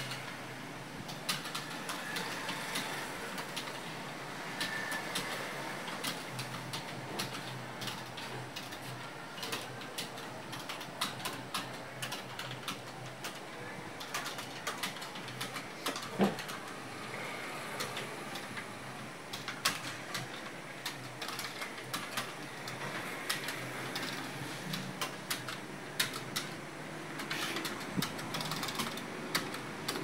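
Fast typing on a computer keyboard, a dense, uneven patter of key clicks at a speed of about 56 words a minute. One louder knock comes about halfway through.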